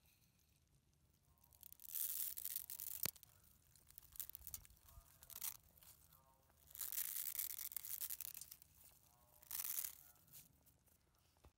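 Dry vermicelli being crushed and snapped between the fingers as it is crumbled by hand into a pot of soup, in three main bursts of crisp crackling with smaller crunches and a sharp snap between them.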